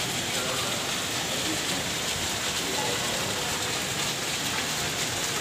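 Heavy monsoon rain falling steadily on lawns and paved courtyards, a dense even hiss that ends abruptly.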